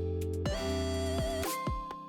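Background music: a light electronic tune of held synth and plucked notes that changes note about every half second.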